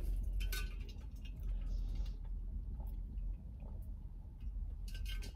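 Scattered light clicks and ticks as an insulated tumbler with a straw lid is picked up and handled, with quiet sipping through its straw.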